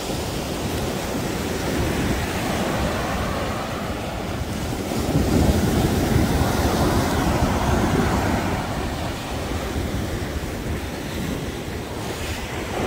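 Surf breaking and washing up on a beach, a steady rushing that swells louder around the middle as a wave comes in. Wind buffets the microphone.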